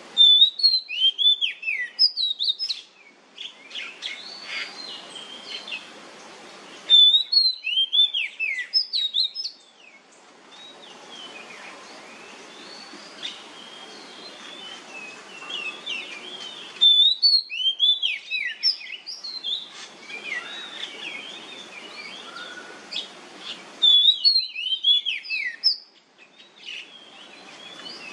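Oriental magpie-robin singing in loud bouts of quick, varied whistled phrases, four bouts about seven to ten seconds apart with softer song between them, over a steady low background noise.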